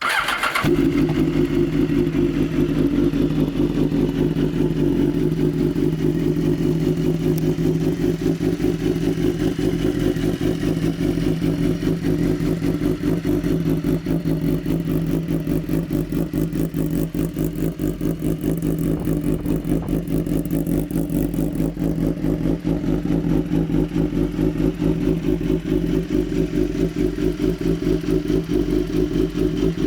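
BMW S 1000 RR HP4's inline-four engine firing up on a cold start right at the beginning, then idling steadily with an even, fast pulse.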